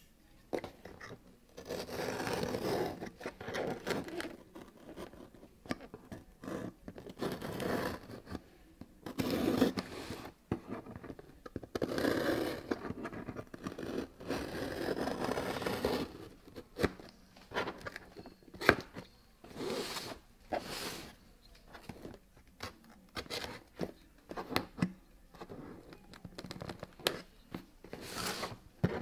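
Utility knife slitting packing tape along the seam of a cardboard box, with the tape tearing and the blade scraping over the cardboard. Several long drawn-out cuts in the first half, then many short, sharp strokes.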